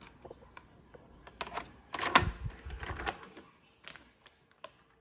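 Scattered clicks and knocks from handling the repaired Elcaset cassette as it is readied for a test, with a cluster of louder clatter about two to three seconds in.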